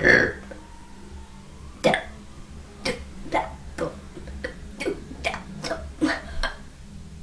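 A person burping loudly right at the start. Then comes a run of short, sharp throat sounds, about ten in some four and a half seconds: small burps, coughs or hiccups that come quickly one after another.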